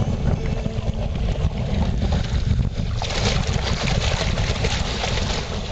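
Wind buffeting the microphone with a steady low rumble, and from about three seconds in, water splashing as a Chesapeake Bay Retriever wades through the shallows right beside the boat.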